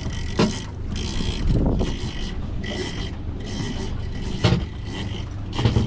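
Boat engine running with a low steady rumble, while a fishing reel's drag gives thin on-and-off whines as a hooked bluefin tuna pulls line against it; a few sharp knocks of gear against the boat.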